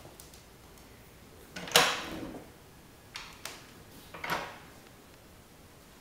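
Panelled closet door being opened: a sharp knock-like click about two seconds in, the loudest, then a few lighter clicks and knocks as it swings open.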